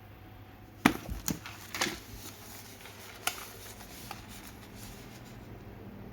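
Packages being handled by hand: a few sharp clicks and knocks, the loudest about a second in, then a couple of lighter taps.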